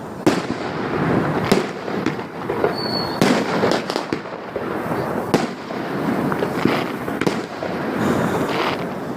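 Fireworks display: several sharp bangs of bursting shells over continuous crackling.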